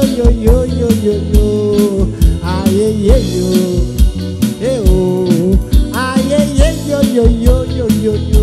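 Live band music: drum kit, electric bass, electric guitar and keyboard playing over a steady beat, with a melody line that bends in pitch.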